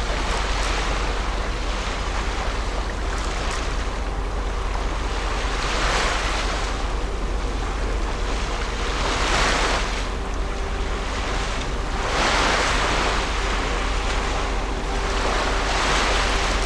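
Water washing against the shore in swells about every three seconds, over a steady low rumble, with a faint steady hum from the passing cruise ship.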